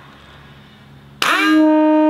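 Early-1970s FIAMM air horn, its electric compressor run from an 18-volt Makita battery, sounding one loud blast about a second in. The pitch sweeps up within a split second, then holds a steady note: the compressor now blows air and the horn works.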